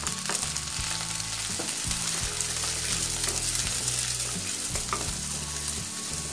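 Beaten egg sizzling in hot oil in a non-stick pan while a wooden spatula stirs and scrapes it, with a few light taps of the spatula against the pan.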